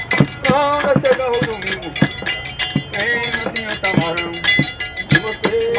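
Forró percussion: a metal triangle ringing steadily over a hand-beaten drum keeping a steady beat, with a voice singing over it at intervals.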